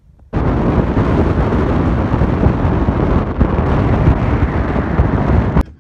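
Heavy wind buffeting a phone microphone: a loud, rough rumble that starts abruptly just after the start and cuts off suddenly near the end.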